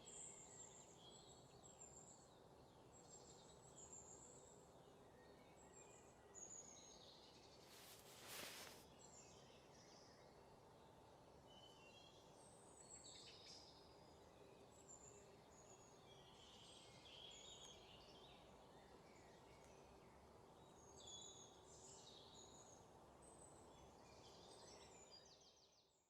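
Faint outdoor ambience of small birds chirping here and there over a low, steady background hiss, with one brief noise burst about eight seconds in; it cuts off suddenly at the end.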